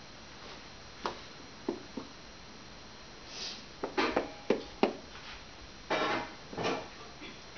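Irregular taps and knocks: a toddler's hands tapping and bumping a tablet in its case. A few single clicks come first, then a quicker cluster of sharper knocks about four to five seconds in, then a couple of duller bumps.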